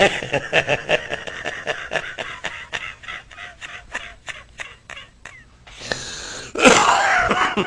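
A man's laughter: a long run of rapid bursts, about four or five a second, that fades out over some five seconds, then a breathy hiss and a louder burst of laughing near the end.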